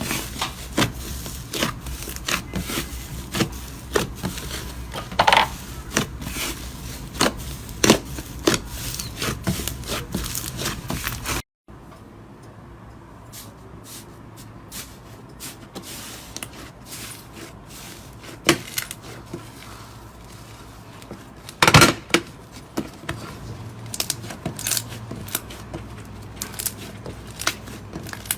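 Slime being squeezed and pressed by hand, making many quick sticky clicks and small pops. About 11 seconds in the sound cuts to a quieter clip with fewer pops and one loud snap a little after the middle.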